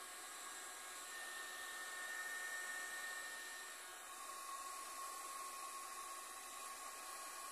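Heat gun running steadily: an even rush of blown air with a thin whine held at one pitch.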